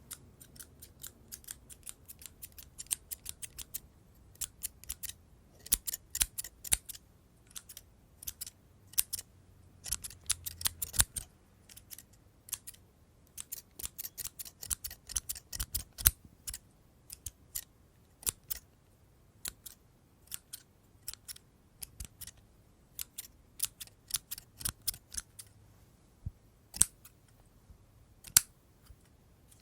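Scissors snipping in quick, irregular runs of crisp clicks, close up.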